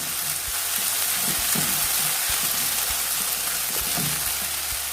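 Sliced onions, ginger, garlic and green chillies sizzling steadily in hot coconut oil in a pan, starting to brown, with a few light taps as they are stirred.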